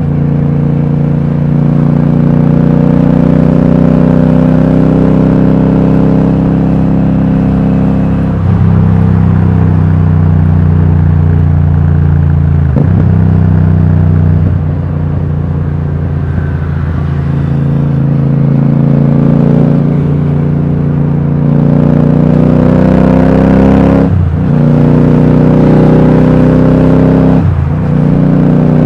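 Royal Enfield Super Meteor 650's parallel-twin engine through a Rhino Racing V2 aftermarket exhaust fitted with dB killers, heard raw from the rider's seat while cruising. The note is steady, dips briefly a few times and picks up again, and eases off for a few seconds in the middle.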